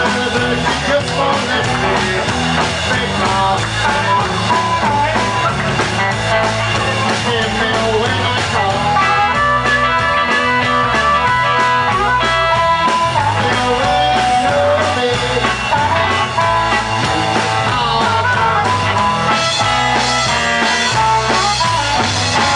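Live blues band playing an instrumental passage: a harmonica wailing lead over electric guitars and drums.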